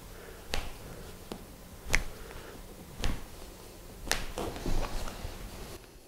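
Wrist and forearm joints popping under a chiropractor's hands: about four short, sharp clicks roughly a second apart, the loudest about two seconds in, as the wrist is mobilised and the joints release.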